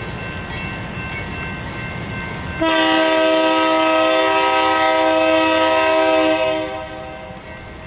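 A BNSF diesel locomotive's air horn sounds one long, loud chord of several notes lasting about four seconds. It starts about two and a half seconds in and fades near the end. Before it, the low rumble of the train can be heard.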